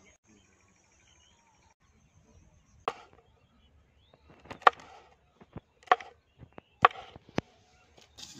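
Kitchen knife chopping green chillies on a wooden cutting board: several sharp, irregularly spaced knocks of the blade on the board, starting about three seconds in.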